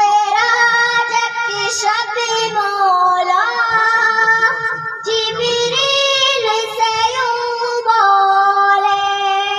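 Young girls singing an Urdu naat (devotional song in praise of the Prophet) into stage microphones, in long held, wavering notes with short breaths between phrases.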